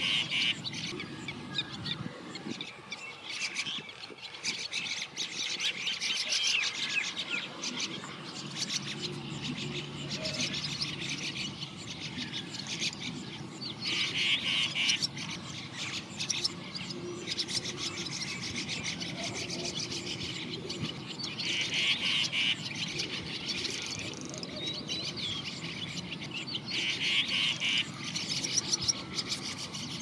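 Small birds chirping and twittering throughout, with a few louder bursts of rapid chirping every several seconds.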